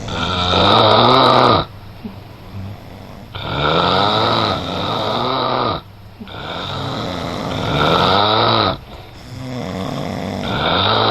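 A man snoring in his sleep: long, loud snores with a pitched flutter, repeating about every three seconds with quieter breaths between. Three full snores, and a fourth starts near the end.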